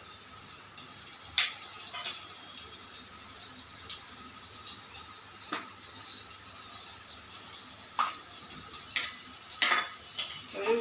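Butter melting and gently sizzling in a stainless steel pan over a gas flame, a steady soft hiss, with a few sharp clicks scattered through it.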